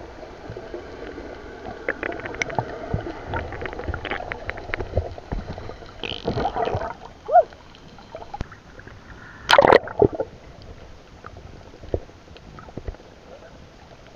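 Underwater sound picked up by a camera submerged in the sea: a muffled wash of water with gurgling and many small clicks. There is a louder bubbling surge about six seconds in and a short, loud gush about nine and a half seconds in.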